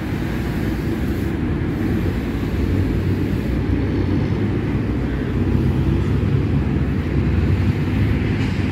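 Road traffic passing: engines of trucks, a bus and cars making a steady low rumble.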